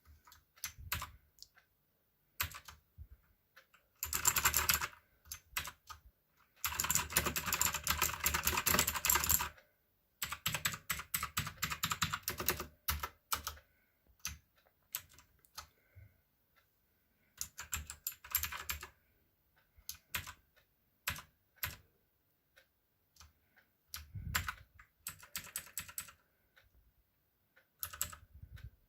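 Mechanical keyboard with clicky blue switches being typed on. There are several fast runs of keystrokes, the longest lasting about three seconds, with pauses and scattered single presses between them.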